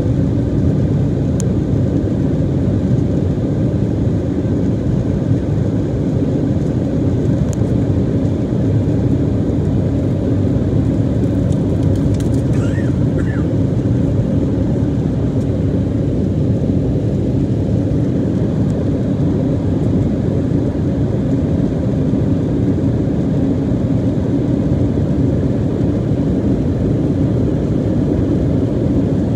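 Steady, loud cabin noise of a jet airliner climbing after takeoff: the low rumble of the engines and rushing air, heard from inside the cabin at a window seat over the wing.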